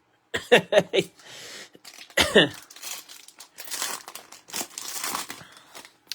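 Trading-card pack wrappers being torn open and crinkled, in uneven patches of rustling. A few short throat-clearing or cough sounds come in the first second and another just after two seconds in.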